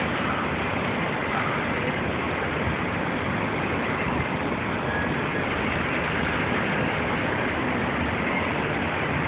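Steady machinery noise of a ship's engines, an even hiss with a low hum beneath that does not change.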